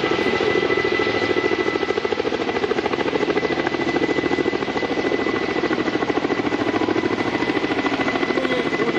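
Helicopter running close by, its rotor beating in a rapid, even pulse over a steady high whine.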